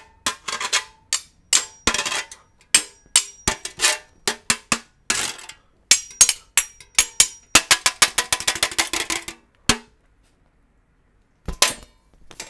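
Metal spoons clacked and scraped against a metal box grater as improvised percussion: a rhythm of sharp metallic clicks and strikes, speeding into a quick run of rapid hits about eight seconds in, then two last hits near the end.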